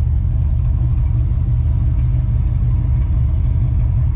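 Steady low rumble of a running car engine.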